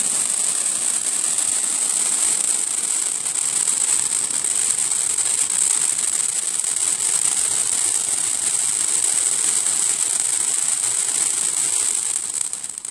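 Fountain firework spraying sparks with a steady, loud hiss, dying down near the end.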